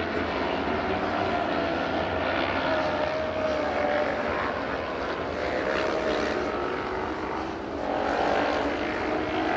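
Engines of several classic racing motorcycles running hard around the circuit, their note gliding up and down in pitch.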